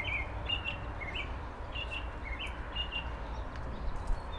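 Small birds chirping: short high notes, some sliding down and back up in pitch, about two a second, over a steady low rumble.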